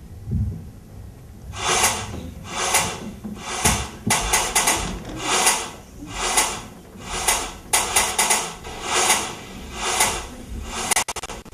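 Rhythmic scratchy swishing, about one stroke a second, starting about a second and a half in after a low thump; it is the opening of an electronic soundtrack with scratching-like strokes.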